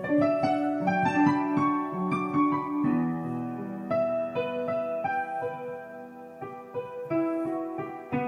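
Solo piano playing: a quicker run of notes over the first few seconds, then slower single notes and chords that ring and fade.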